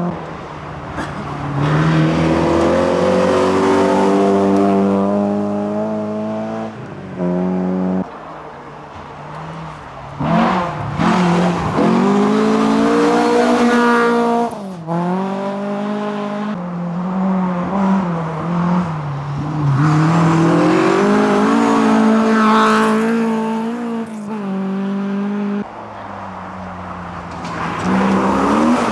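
Historic rally car engines revving hard as several cars take a corner in turn, each engine note climbing in pitch and dropping back sharply again and again as they accelerate and shift gears.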